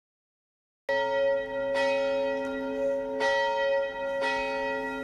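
A bell struck four times at uneven intervals of about a second, starting about a second in, each stroke ringing on under the next.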